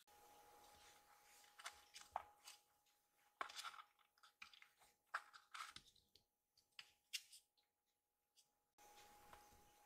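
Faint scattered rustles, scratches and light taps from a kitten moving about and poking at a cloth slipper, over a faint steady hum of room tone.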